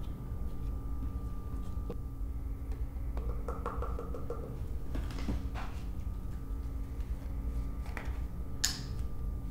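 Quiet kitchen handling sounds over a steady low hum: protein powder tipped from a plastic scoop into a shaker cup, with a soft rustle, then a plastic milk jug being handled and poured, with a few sharp clicks near the end.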